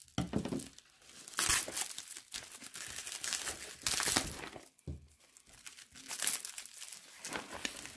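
Plastic bubble wrap being peeled off a cardboard box and crumpled by hand: irregular crinkling and crackling, with louder bursts about a second and a half in, around four seconds, and again past six seconds.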